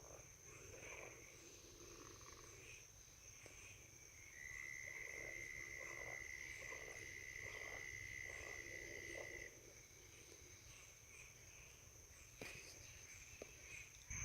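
Faint night chorus of insects and frogs: a steady high insect trill under repeated short calls. A long even trill is held for about five seconds in the middle. There is a brief faint knock near the end.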